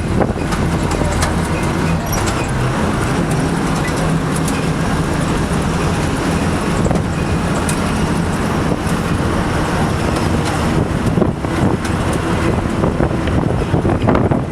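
Road vehicle driving: a steady engine hum and road noise, with scattered small knocks and rattles throughout.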